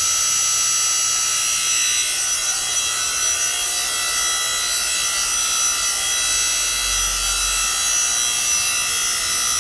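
The 3 hp single-phase electric motor and hydraulic pump of a 7-ton log splitter running steadily, with a constant whine.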